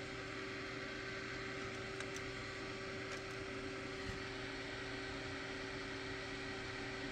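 Dell OptiPlex 780 desktop computer running: a steady whirring hum from its cooling fans and spinning hard drive, with a faint click or two. The machine is powered up but stuck without completing POST, which the owner puts down to it being cold and unused for months.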